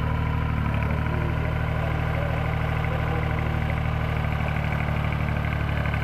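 Engine of a tracked YBM-3000 solar pile driver running steadily at idle, with no hammer strikes.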